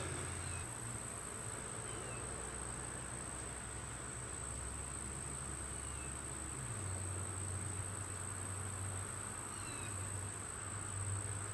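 Steady, high-pitched drone of late-summer insects trilling without a break, with a few faint, short falling chirps from birds.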